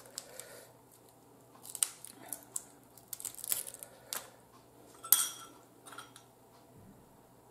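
Boiled blue crab shells cracking and snapping as they are picked apart by hand: a string of sharp crackles and clicks, the loudest about five seconds in, with chewing between them.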